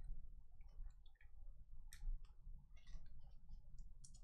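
Faint scattered clicks and light rustles of trading cards being handled and shifted in the hands, with a sharper click about two seconds in and a few more near the end, over a low steady hum.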